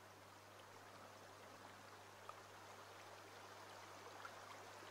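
Faint, steady burble of a shallow stream running over stones, with a low steady hum underneath.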